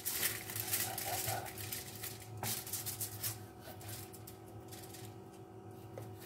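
A knife cutting slits into a whole raw fish on aluminium foil: soft scraping and rustling of the blade on the scales and of the crinkly foil, busiest in the first few seconds. A steady low hum runs underneath.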